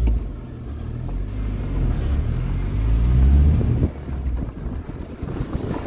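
A car driving on a dirt road, its engine rising in pitch as it accelerates and then dropping away suddenly near four seconds in, with wind rumbling on the microphone.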